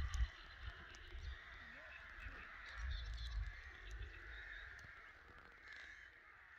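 A colony of crows cawing continuously, many calls overlapping into one steady chorus that grows slightly fainter toward the end. Bursts of low rumble come right at the start and again around three seconds in.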